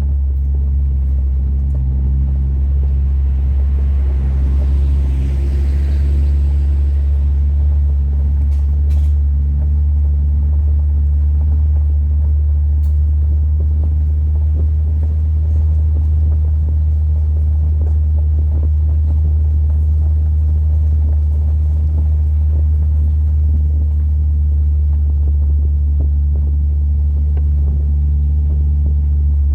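Heavy wind rumble on the microphone of a moving Audi TT Quattro 225 roadster, a loud steady low rumble covering the car's road and engine noise. A brief rush of higher noise swells and fades about five seconds in.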